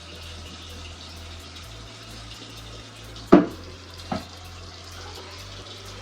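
Kitchen tap running steadily into a sink, with two sharp clanks of something hard in the sink, a loud one a little over three seconds in and a fainter one about a second later.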